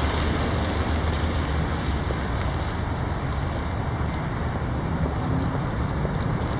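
Steady wind noise on the microphone with a low rumble.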